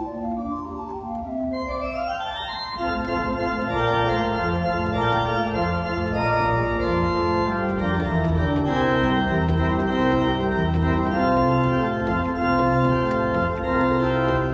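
Church organ with two manuals and a pedalboard playing a slow piece in sustained chords; about two to three seconds in the sound grows fuller, and from there a bass line on the pedals moves step by step beneath the held chords.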